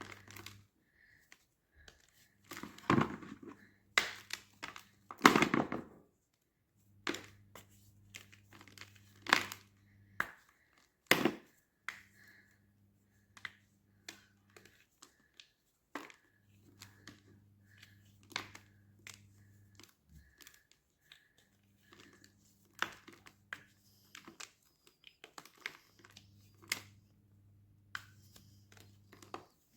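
Blocks of gym chalk being crushed, giving irregular dry crunches and crackles, with the loudest crunches a few seconds in.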